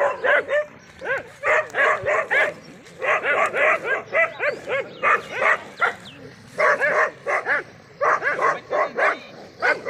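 A pack of dogs barking and yipping in play, in rapid runs of short barks several a second, coming in bouts of about a second with brief pauses between.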